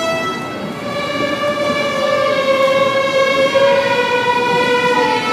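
A school string orchestra of violins, cellos and double basses playing long held notes that move slowly from one pitch to the next.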